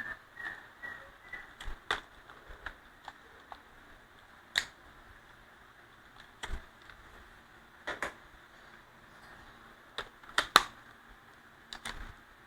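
Scattered sharp clicks and light knocks from a small power drill being handled, its switch and trigger clicked at irregular intervals, with no steady motor run.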